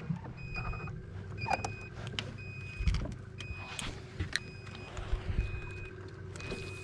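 A short high electronic beep repeating steadily about once a second, over a low rumble, with scattered clicks and knocks of handling on the boat.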